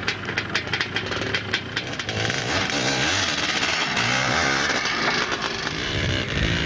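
Dirt bike engine running, with a quick run of sharp crackles over the first couple of seconds. Music fades in over it from about halfway.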